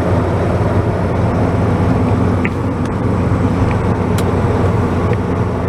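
An engine running steadily, a low even hum, with a few faint clicks over it.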